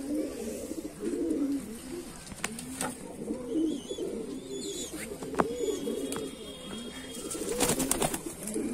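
A flock of domestic pigeons cooing continuously, many low, rolling calls overlapping one another. There are a few sharp clicks, and a brief flurry of noise near the end.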